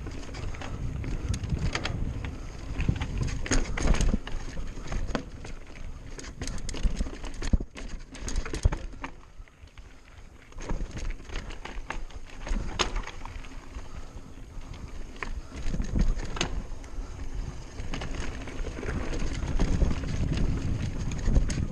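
Mountain bike ridden fast down a dirt forest trail: tyres rumbling over the dirt, with frequent rattling knocks from the bike as it hits bumps. The noise eases briefly about halfway through, then picks up again.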